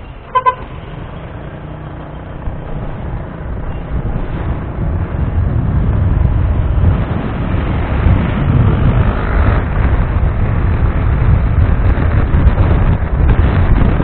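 A short horn beep about half a second in, then low wind rumble on the microphone and road noise growing steadily louder as the motorcycle picks up speed.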